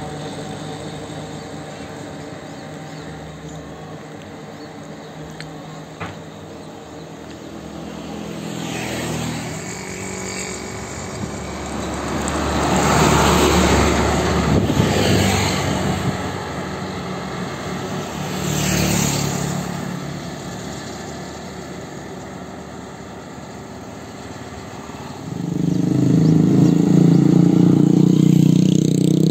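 Heavy diesel truck loaded with oil palm fruit bunches approaching and rumbling past, loudest about halfway through, with a smaller swell of passing noise a few seconds later. Near the end a nearby vehicle engine comes in suddenly and runs steadily loud.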